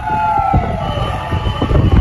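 Fire engine mechanical siren winding down in pitch, over a heavy low rumble of storm wind.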